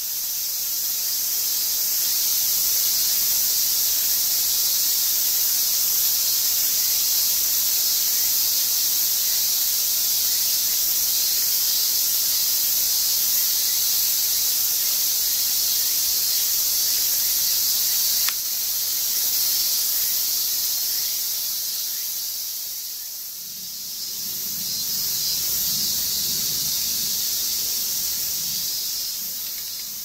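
Steady, high-pitched chorus of insects shrilling in the vegetation. In the last few seconds a lower, wavering sound of water falling into a pond joins in.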